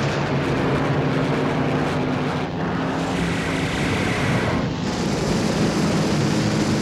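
Propeller aircraft engines droning steadily overhead: a low hum under a continuous wash of noise.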